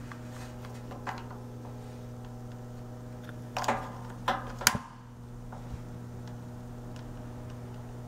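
Steady low electrical hum, with a few light clicks and knocks from handling the test setup: one about a second in and a quick cluster a little past the middle.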